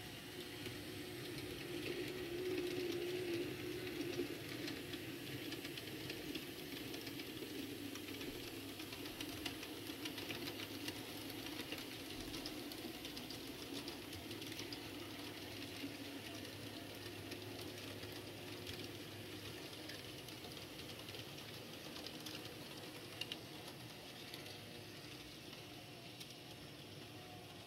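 N-scale model freight trains running past on the layout: a steady small-motor whir with fine, rapid clicking of the tiny metal wheels on the rails. The sound is loudest a few seconds in and slowly fades as the grain train moves away.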